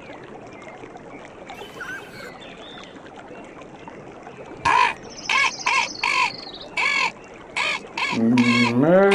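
Faint birdsong over outdoor background, then from about halfway in a run of about seven short, loud bird calls with a high trill over some of them. Near the end a cow starts a long, low moo.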